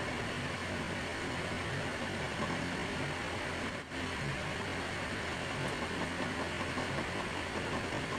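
Steady background noise, a low hum under a hiss, with no distinct events; it dips briefly about four seconds in.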